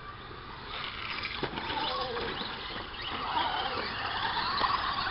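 Radio-controlled short course trucks racing on a dirt track, their motors whining up and down in pitch as they speed up and slow down, with scattered clicks and knocks. The sound grows louder about a second in.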